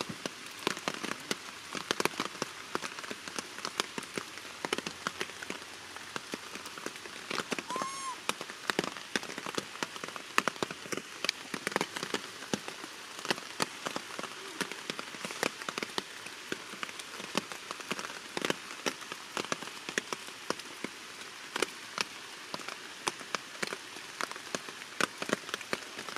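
Heavy rain falling steadily, with many close raindrops ticking sharply on surfaces over a constant hiss. A single short high call rises and falls about eight seconds in.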